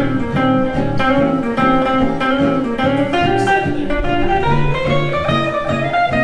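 Two jazz guitars, a Gibson ES-175 archtop electric and a gypsy-jazz-style acoustic, playing a swing jazz blues. A single-note melody line climbs through a rising run near the end over steady rhythmic chord comping.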